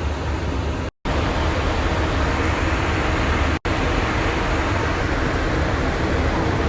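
Steady cabin noise of an airliner in flight: an even rushing of engines and air. It cuts out to silence twice, briefly about a second in and for an instant near the middle.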